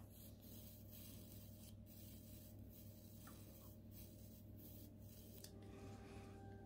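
Near silence: a faint, steady low electrical hum with a little soft rustling.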